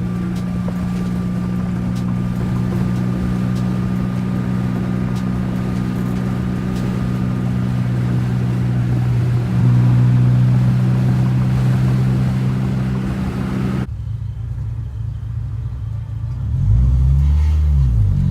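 Honda Del Sol's four-cylinder engine running at a steady speed while driving. About 14 seconds in the sound changes abruptly, and near the end the revs rise and fall.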